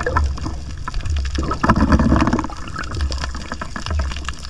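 Underwater ambience picked up by a diver's camera: water moving around the camera with low surges about once a second and a dense crackle of fine clicks throughout.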